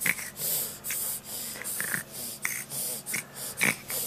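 A baby's short breathy puffs and hisses, about two a second, with small mouth clicks between them.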